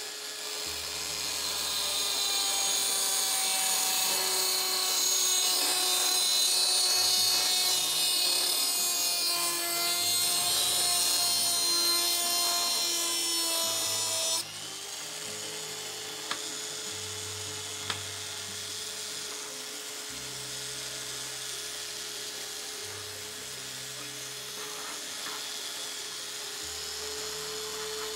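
Small handheld rotary tool with a cut-off disc whining as it cuts through the thin metal panel of a diecast model car, its pitch wavering with the load. About halfway through the sound drops suddenly to a quieter, steadier whine.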